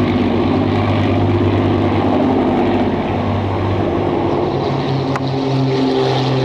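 Propeller race plane's piston engine droning in flight as it runs the air-race course, a steady hum of low tones that shifts in pitch about halfway through.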